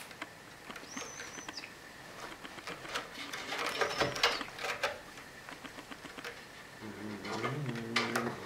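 A cat's claws scratching and scrabbling at a sisal-rope scratching post and a dangling pompom toy, in scratchy rustles and light clicks that are densest midway through. Near the end comes a short, low pitched sound.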